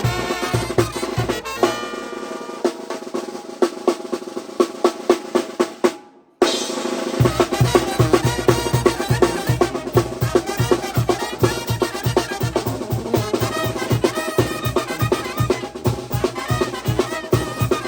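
Mexican banda brass band playing, with winds over a steady snare and bass drum beat. About two seconds in the low bass line drops out, leaving winds and drums. The music fades to a brief silence about six seconds in, then the full band starts again, its bass coming back a second later.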